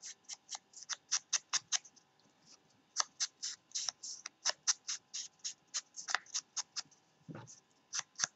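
Rapid dry ticks and scratches of hands working paper and small crafting items on a tabletop, about three to four sharp ticks a second with a few short pauses.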